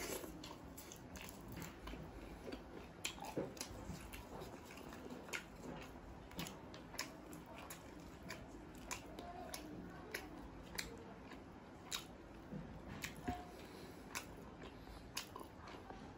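Close-miked eating sounds of a person eating butter naan with kadhai paneer and dal makhani by hand: chewing with a steady run of short, wet mouth clicks and smacks, a few a second.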